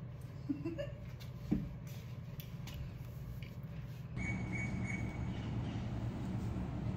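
Room tone: a steady low hum with a few faint short squeaks and a single click in the first two seconds. About four seconds in the background hum changes abruptly and grows slightly louder, with a faint high tone coming and going.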